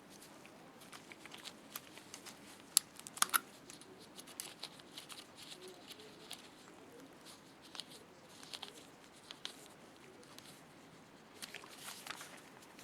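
Scattered small clicks and light handling noise from hand work on a small wire-terminal assembly: wires, lock washers and tools being handled. Two sharper clicks come about three seconds in, with a faint rustle near the end.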